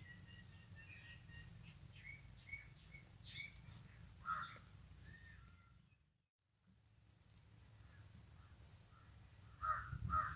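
Japanese burrowing cricket (Velarifictorus micado) singing: a few short, loud chirps a second or two apart over a steady, high trill from other insects. The sound drops out briefly just past halfway, and near the end a louder, lower-pitched animal call comes in.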